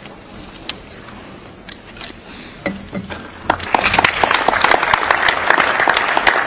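Quiet hall with a few isolated clicks, then applause from an audience breaks out about three and a half seconds in and keeps going.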